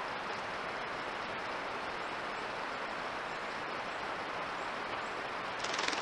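Steady hiss from a trail camera's built-in microphone, with a brief rustle near the end.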